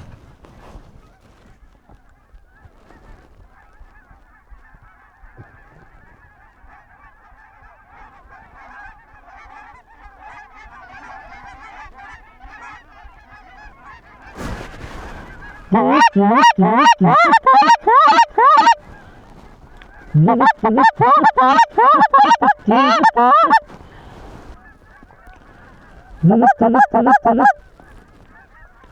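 Goose calls blown hard in three loud runs of rapid honks and clucks in the second half, over a flock of geese honking faintly in the distance through the first half.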